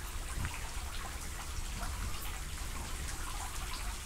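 Steady patter of dripping water, with many small scattered ticks over a low rumble.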